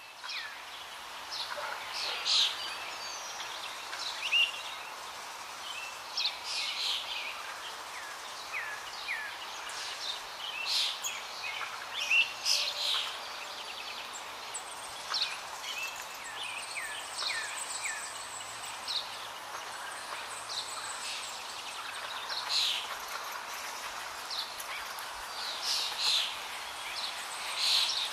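Small birds chirping repeatedly in short, high calls, some with quick falling notes, over a steady background of outdoor noise.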